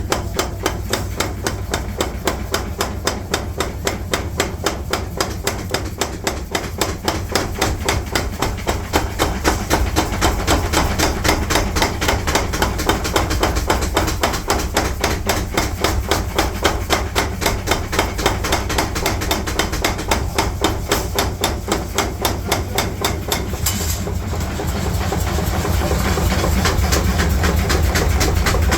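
Forging hammer striking steel in rapid, evenly spaced blows, about four a second, over a steady low machine rumble. Near the end the blows give way to the louder steady running of a machine.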